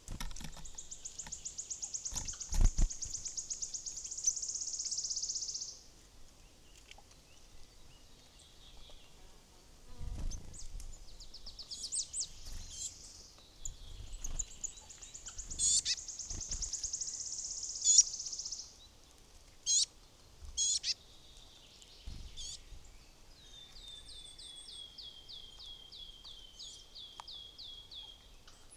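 Small songbirds singing: two long, very rapid high trills, several short sharp chirps, and near the end a run of repeated notes that falls slightly in pitch, with a few soft low knocks in between.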